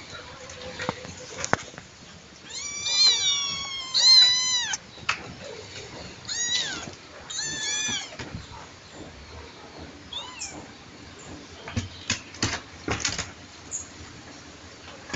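Black kitten meowing, about five high calls that each rise and fall in pitch, the loudest ones a few seconds in. A few light knocks follow near the end.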